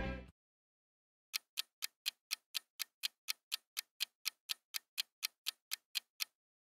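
Music cuts off abruptly, and after a second's silence a countdown timer's clock-tick sound effect plays: evenly spaced sharp ticks, about four a second, stopping shortly before the end.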